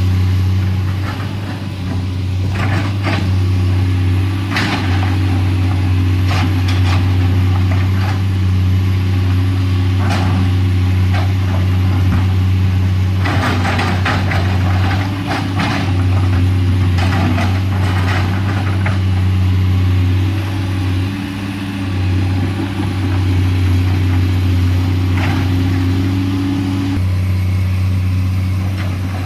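Komatsu PC210LC excavator's diesel engine running steadily under work, with scattered knocks and scrapes of digging, busiest about halfway through.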